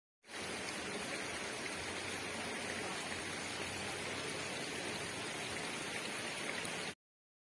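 Steady rushing of a shallow creek's flowing water, which cuts off suddenly near the end.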